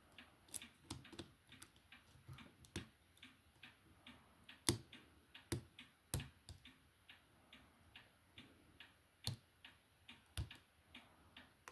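Faint, irregular small clicks and ticks of a lock pick and tension wrench working the pins of an Ace pin-tumbler padlock, with a few sharper clicks among them.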